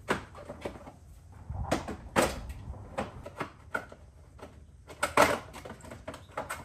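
Scattered clicks and knocks of hard car parts being handled during a cold-air intake install at the front of a BMW M5, with a few louder knocks about two seconds in and again around five seconds in.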